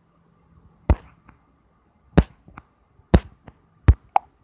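A series of sharp knocks: four loud ones about a second apart, each followed a moment later by a fainter one. The last faint one has a short ring.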